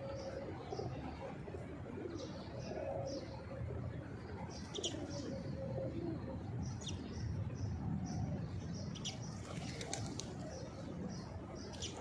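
Feral rock pigeons cooing softly while they feed, with small birds chirping in short high notes throughout.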